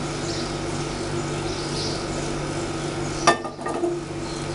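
Non-stick frying pan set down on a gas stove's metal pan support: one sharp metallic clank about three seconds in, with brief ringing, over a steady hum.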